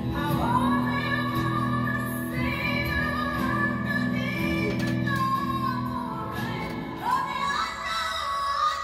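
A woman singing a power ballad in a strong belt, holding long high notes over a steady low accompaniment. The first phrase is held for about six seconds, and a second phrase begins about seven seconds in.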